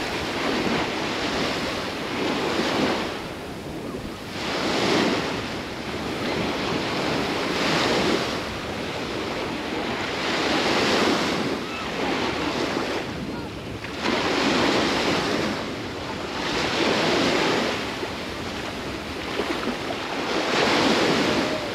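Surf breaking on a sandy Baltic Sea beach, each wave swelling to a rush and washing out again about every two to four seconds, with steady wind behind it.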